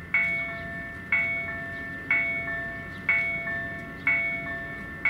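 Level crossing warning bell ringing at the lowered barriers, about one stroke a second, each stroke ringing on and fading before the next: the crossing is closed for an approaching train.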